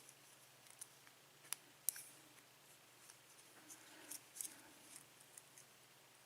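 Near silence with a few faint, sharp little clicks of a lock cylinder and its parts being handled, the clearest two about a second and a half and two seconds in, a few more around four seconds.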